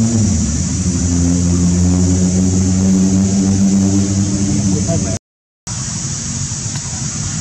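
A vehicle engine running steadily, its pitch settling a little lower just after the start. The sound cuts out for a moment about five seconds in, and then a rougher engine rumble continues.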